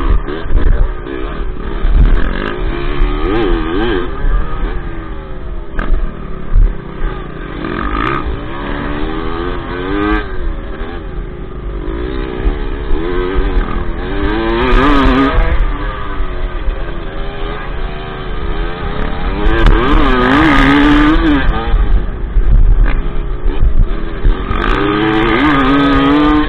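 Dirt bike engine heard from on the bike as it is ridden on a dirt track, the revs rising and falling continually with the throttle. It climbs to higher revs several times, loudest in the second half.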